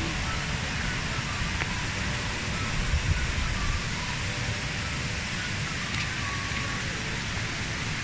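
Steady rushing of waterfall cascades: a constant noise of falling water with a deep rumble underneath.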